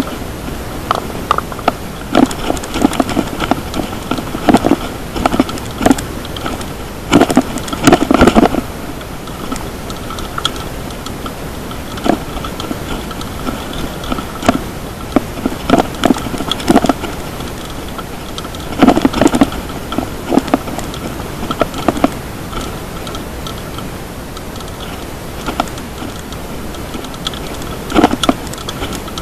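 Loud, harsh action-camera audio of a mountain bike riding over a bumpy stone-slab path: a steady hiss, broken every few seconds by clusters of rattling and knocking as the bike jolts over the slabs.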